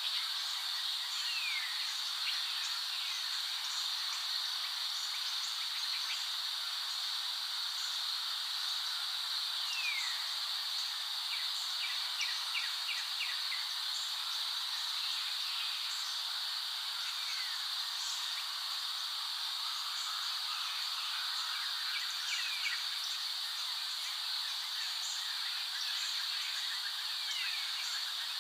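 Steady high-pitched insect chorus in a nature recording, with a few short falling whistles and a brief run of quick ticks partway through.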